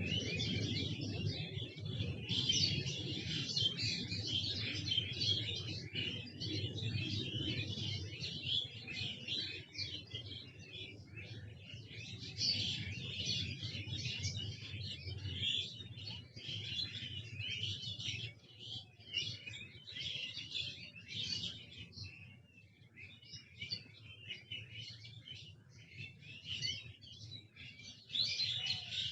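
Many small birds chirping and twittering at once in a dense, overlapping chorus of quick high calls, over a low steady rumble. The chorus thins for a few seconds past the middle and picks up again near the end.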